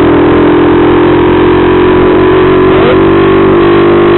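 Honda CG Titan 125's single-cylinder four-stroke engine running at a steady pitch while the motorcycle is ridden along a street, heard from the rider's position.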